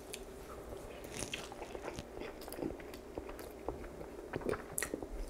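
Close-miked chewing of a mouthful of congealed seasoned rice, with soft wet clicks and smacks of the mouth at an irregular pace.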